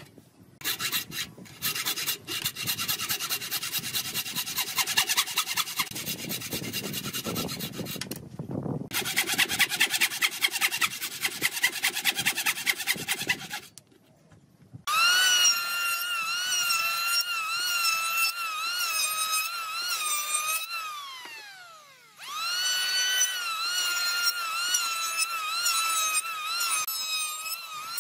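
Wooden-framed bow saw cutting through wood in quick back-and-forth strokes. After a short break, a Dongcheng electric hand planer runs with a high whine whose pitch dips as it cuts. About halfway through its run it winds down, falling in pitch, then starts up again.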